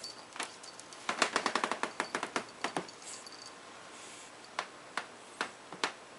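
A pug puppy's claws clicking on a hard wood floor as it scampers about: a fast run of clicks for nearly two seconds about a second in, then four single taps toward the end.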